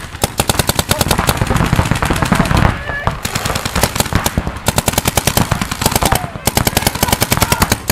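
Paintball markers firing rapid, overlapping strings of shots, with short lulls about three seconds in and again a little after six seconds.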